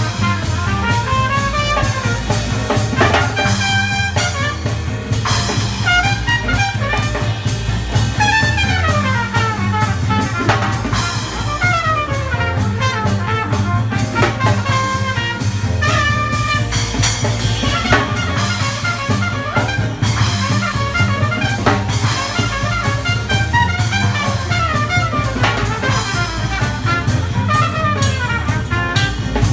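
Live gypsy jazz band playing: a trumpet melody over a Selmer-style acoustic guitar, upright double bass and drums, with a steady beat and repeated falling runs.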